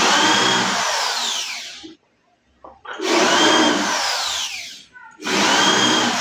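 Corded electric drill running in three bursts of about two seconds with short pauses between, working into the top panel of a melamine-faced particleboard cabinet. In each burst the motor's pitch starts high and sinks.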